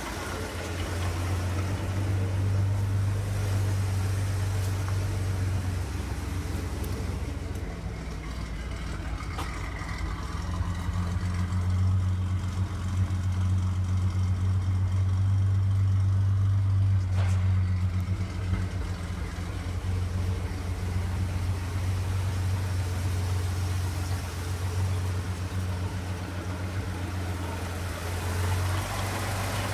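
1975 Chevrolet P30 step-van's gasoline engine idling with a steady low hum.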